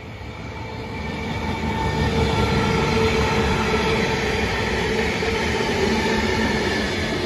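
A freight train passing close by: two cement tank wagons, then Pacific National 81 and 82 class diesel-electric locomotives running by. Engine drone and wheel-on-rail rumble build over about the first two seconds, then hold steady and loud.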